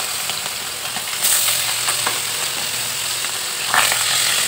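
Whole fish shallow-frying in hot oil in a wok: a steady sizzle with fine crackles. A metal spatula scrapes under the fish to turn them, giving louder bursts about a second in and again near the end.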